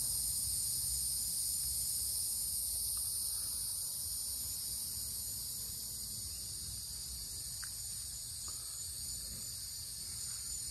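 A steady, high-pitched chorus of insects chirring without a break, over a low rumble.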